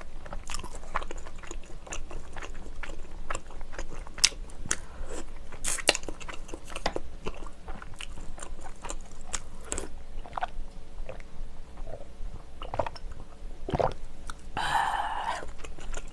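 Close-miked mouth sounds of eating: steady chewing and biting with many small sharp clicks and crunches at an uneven pace, and a short rush of noise near the end.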